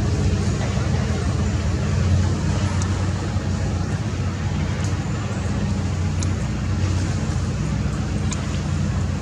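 Steady low rumbling background noise, with a few faint short high ticks scattered through it.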